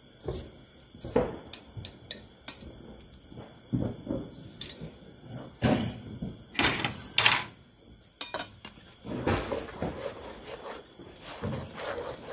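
A wide spatula scraping and slapping thick cashew paste around a metal kadai in irregular strokes, with one louder, harsher scrape about seven seconds in. Crickets chirp steadily behind it.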